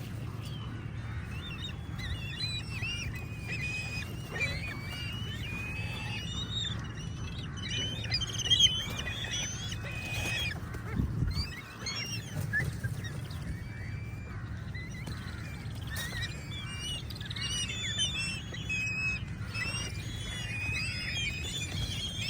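A large flock of birds calling at once, many short, high overlapping calls with no pause, over a steady low rumble.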